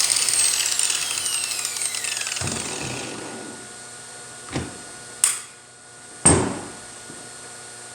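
Electric Matebo high-speed grinder winding down after being switched off, its whine falling in pitch and fading over about three seconds. Then three sharp knocks, the loudest near the end.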